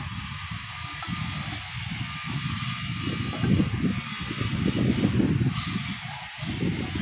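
Wind rumbling and buffeting on the microphone in irregular gusts, strongest in the middle, over a steady hiss.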